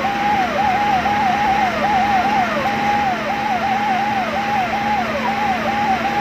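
Emergency vehicle's electronic siren sounding continuously, a single note that holds briefly and then drops sharply in pitch, repeating a few times a second, over a steady low hum.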